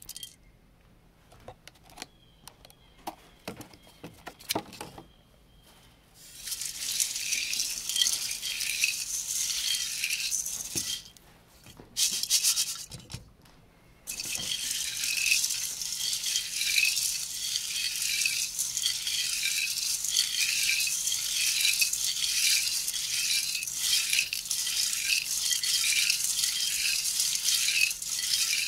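Beech nuts rattling and clicking against a perforated metal colander as a hand stirs through them. A few scattered clicks come first, then bouts of dense rattling that turn continuous about halfway through and pulse in a steady rhythm.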